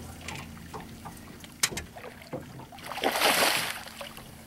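Water lapping around a small fishing boat, with a sharp knock about one and a half seconds in and a short splashing rush about three seconds in.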